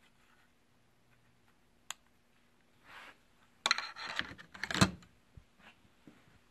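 Close clicking and rustling handling noise: a single sharp click, then a dense cluster of crackling clicks and rubs for about two seconds.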